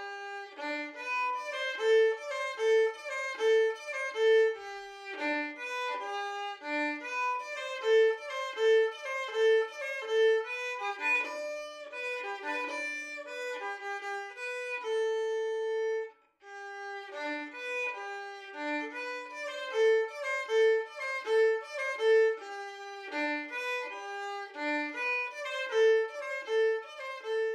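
Background music on violin, a lively tune with runs of short repeated notes, breaking off briefly about sixteen seconds in before going on.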